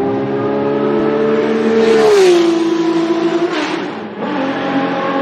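Racing car engine running at high revs. Its pitch falls about two seconds in, then holds steady.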